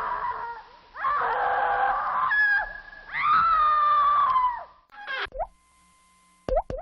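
Cartoon comic-surprise sound effect: three voice-like cartoon cries in a row, each a second or so long and sliding down a little in pitch. A few short, quick rising blips come near the end.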